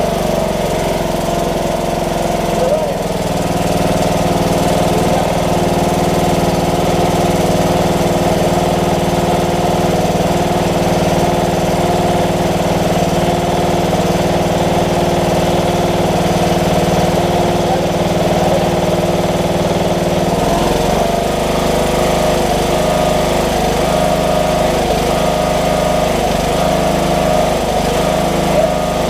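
Craftsman riding tractor's 18 hp overhead-valve engine running steadily just after a choked start. Its tone shifts slightly about twenty seconds in. It is run to test whether the repaired alternator stator now charges the battery.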